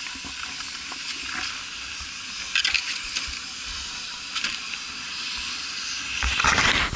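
Skis shifting and scraping on packed snow over a steady hiss: a few short scrapes, then a louder rush of scraping noise near the end as the skier turns.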